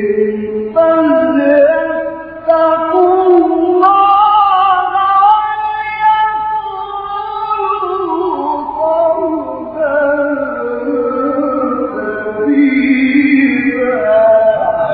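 A man's solo Quran recitation in the slow, melodic tajwid style, with long held notes that glide and ornament their pitch. There is a brief pause for breath a little after two seconds.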